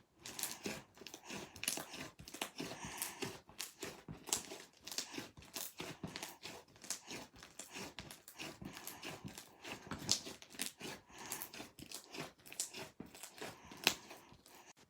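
Slime being squished and worked, giving a dense, irregular stream of crackling, crunchy pops and clicks.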